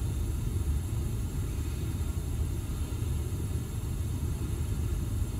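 Steady low rumble with no distinct events, and a faint thin high tone running through it.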